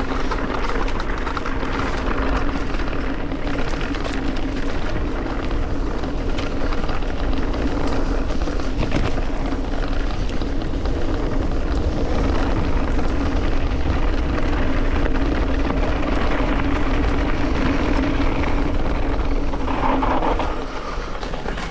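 Mountain bike riding downhill at speed: wind rushing and rumbling over the camera microphone, with tyre noise and the odd knock as the bike runs over bumps.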